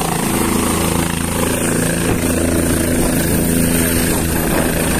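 Helicopter running steadily on the pad: an even, loud engine and rotor drone made of several steady low tones.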